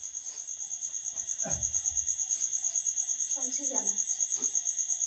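Crickets chirping in a fast, steady pulse, with faint voices now and then underneath.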